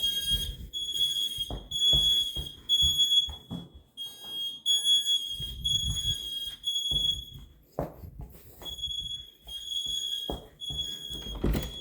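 Several interconnected Kidde smoke alarms sounding together, a high-pitched pulsing beep in repeated bursts with short pauses between them, triggered by the test button on a Kidde 30CUA10. Irregular low thuds sound underneath.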